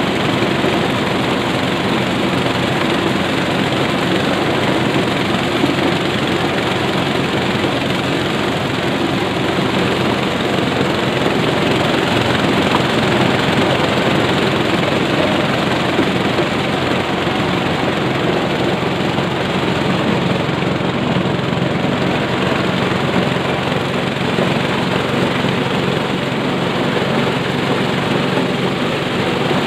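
Belt-driven corn sheller running steadily while ears of corn are fed through it: a loud, dense, unbroken machine noise.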